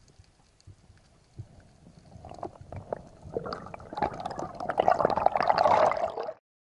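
Underwater bubbling and gurgling water around the camera, with scattered faint clicks at first, building from about two seconds in into a dense crackling rush that cuts off abruptly near the end.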